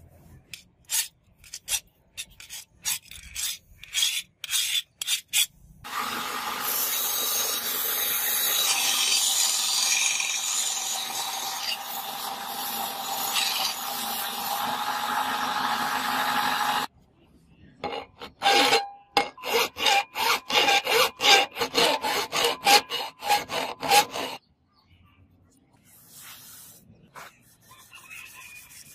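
A steel sword blade being abraded. First comes a run of rasping hand strokes on the steel, then a belt grinder grinds the blade steadily for about eleven seconds. After that comes another quick run of loud rasping strokes, and faint rubbing of hand sanding near the end.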